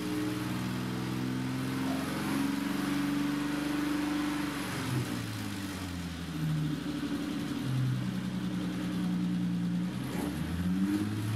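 BMW E30 325i's 2.5-litre straight-six, running with the throttle cable disconnected, revved by hand at the throttle body. The revs rise and fall several times. It revs up freely, which the owner takes to mean the throttle pedal or mechanism is stiff.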